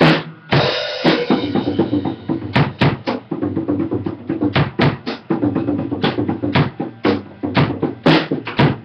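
An acoustic drum kit played in a steady beat: bass drum and snare strikes, with a cymbal wash ringing out from about half a second in.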